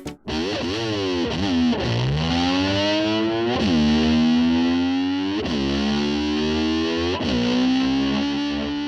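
Music: a distorted electric guitar holding long sustained notes that repeatedly swoop down and back up in pitch.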